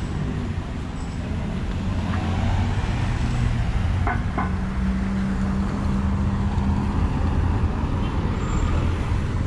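Road traffic on a city avenue: passing cars' engines and tyres make a steady rumble and hum, with two short clicks about four seconds in.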